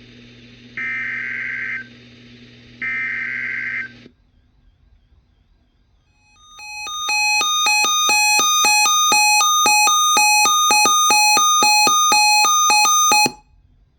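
Emergency Alert System tornado-watch broadcast. Two short digital header bursts of about a second each, then a pause of a couple of seconds. Then the attention signal: a loud alert tone that pulses about four times a second for roughly seven seconds and cuts off suddenly.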